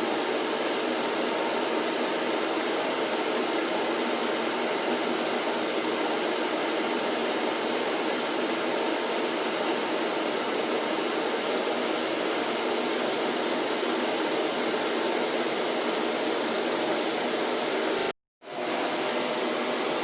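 Vacuum cleaner running with a steady, unchanging whoosh. It cuts out to silence for a moment about 18 seconds in, then resumes at once.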